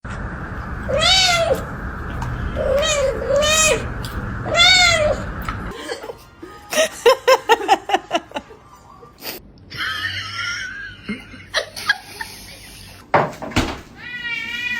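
A cat meowing in four drawn-out calls that rise and fall in pitch, over a steady background hum, in the first half. After that comes a quick run of short pitched calls and assorted noises.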